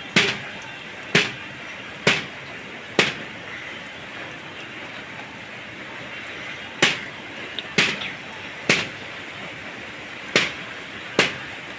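Steady hiss of rain, with sharp single taps, mostly about a second apart, that stop for a few seconds in the middle.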